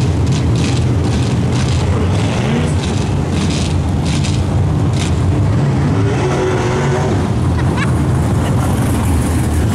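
Dirt-track modified race cars' engines running loudly together, a low rumble rising and falling as they rev, with one engine revving up near the end.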